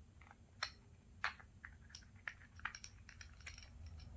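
Scattered small clicks and taps, about eight, irregularly spaced, as the metal parts of a scuba regulator are handled and turned by hand while checking a piece found to be loose.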